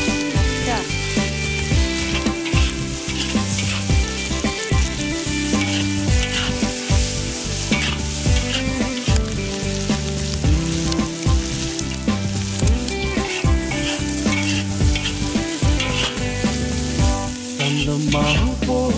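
Sliced pig liver and pickled chilies sizzling in a hot iron wok while a metal spatula scrapes and tosses them, with frequent short scrapes throughout.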